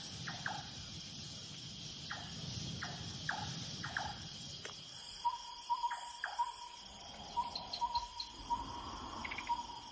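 Night insect chorus of crickets chirring steadily. In the first half a string of short falling chirps sounds over it, and from about five seconds in a steady, pulsing high note joins.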